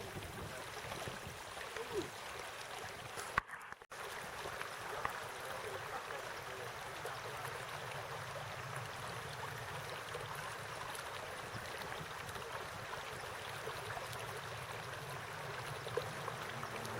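Stream water running steadily, with the sound cutting out briefly about three and a half seconds in.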